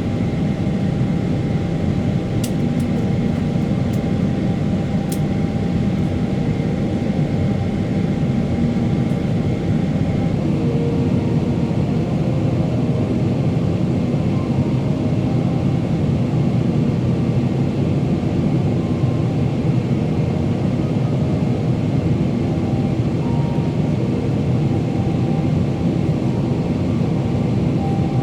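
Steady cabin noise inside a Boeing 777-300ER in flight: the GE90 engines and the airflow over the fuselage make an even, low rumble. A faint steady whine fades out about ten seconds in.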